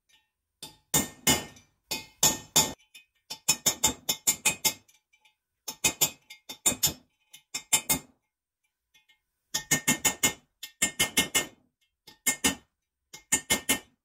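Hammer striking a small steel punch to drive the pinion bearing races out of a Ford M86 differential housing: quick runs of sharp metallic blows with a ringing tone, in several groups separated by short pauses.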